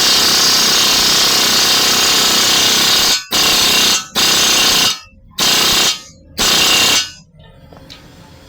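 Power tool run in one long burst of about four seconds, then four short bursts of under a second each, during work on a front wheel bearing.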